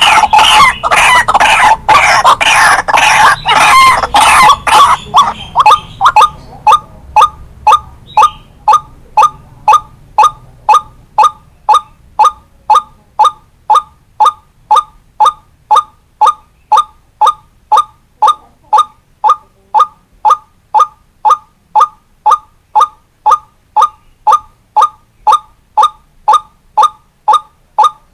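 White-breasted waterhen calling: a loud, dense burst of overlapping calls for about the first six seconds, then settling into a steady series of single short notes, about two a second.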